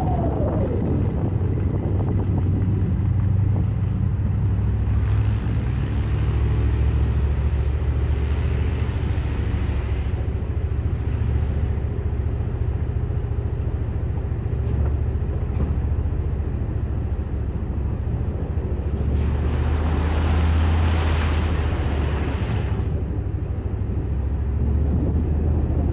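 Ford Raptor pickup driving slowly off-road, its engine and drivetrain a steady low rumble. Two spells of rushing hiss come over it, about five seconds in and again about nineteen seconds in.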